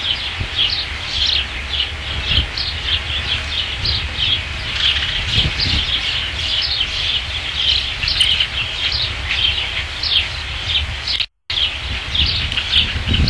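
Ospreys at the nest giving a rapid, continuous series of high chirping calls, several a second, over a low wind rumble on the microphone; the sound cuts out for a split second near the end.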